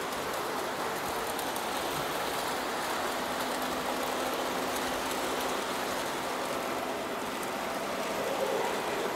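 Model trains running on the layout: a steady rolling rattle of wheels on the track, with a faint steady hum underneath.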